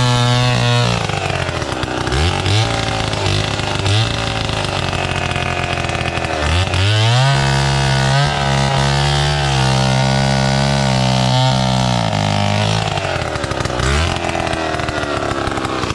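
Two-stroke chainsaw cutting coconut palm, its engine revving up and down. It drops from high revs after about a second and blips twice. About six and a half seconds in it climbs to full throttle and holds there for about five seconds, drops back, and blips once more near the end.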